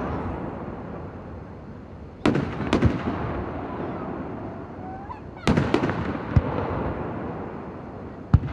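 New Year's aerial fireworks going off: three sharp booms about three seconds apart, each followed by smaller cracks and a rumbling echo that fades away.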